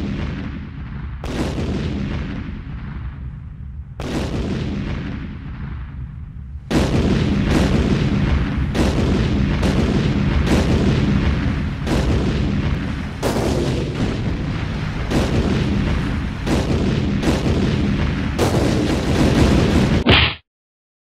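Heavy booming hits, each ringing out. Three come slowly, about two and a half seconds apart, then a faster run of one or two a second follows. A short high tone ends the run and the sound cuts off suddenly.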